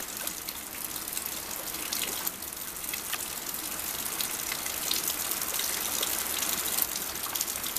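Steady rushing of water, with many small ticks and pops through it, from floodwater and runoff after a long heavy rain.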